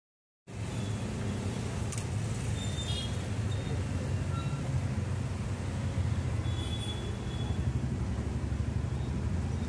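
Steady low rumble of open-air street ambience, starting about half a second in after a brief silence, with a few faint clicks.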